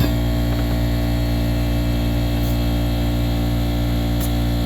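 Air compressor running steadily with a low, even hum, filling a freshly mounted motorcycle tire with air.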